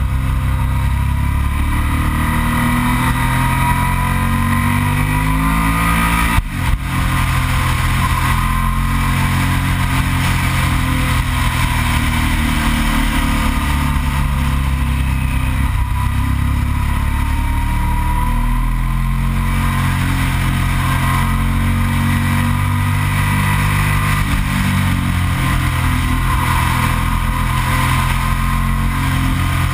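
Yamaha TDM 900's parallel-twin engine running at speed, its pitch rising and falling with the throttle, under a steady rush of wind noise. About six seconds in there is a short break in the sound.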